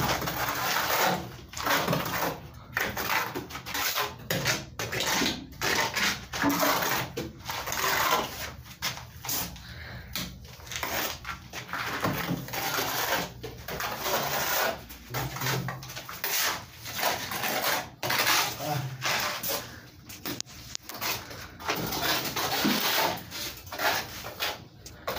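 Steel plastering trowel scraping wet cement plaster onto a concrete block wall, in repeated rough strokes with short pauses between them.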